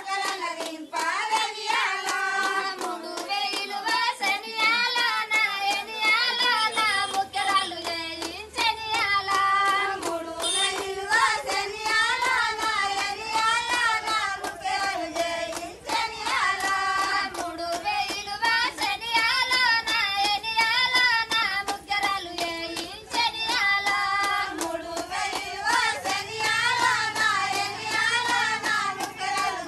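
Women singing a folk song together while clapping their hands to a steady beat.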